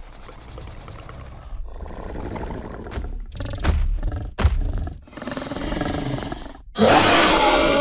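Dinosaur sound effects: a creature growls in several passages, with two short heavy thuds about three and a half and four and a half seconds in, then breaks into a loud roar about a second before the end.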